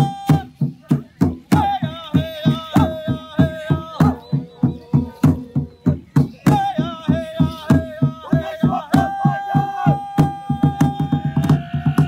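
Music: a fast, steady drumbeat of about four beats a second under a held melody whose tones waver and slide in pitch.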